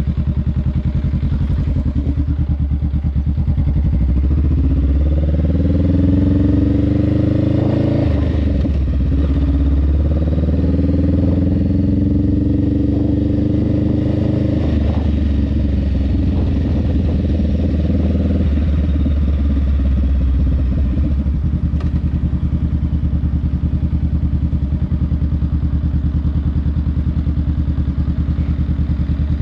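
Honda Rebel 500's parallel-twin engine, with an aftermarket Vance & Hines exhaust, pulling away: the pitch climbs, drops sharply at an upshift about eight seconds in, climbs again, drops at a second shift, then eases off and settles into a steady low running note for the last several seconds.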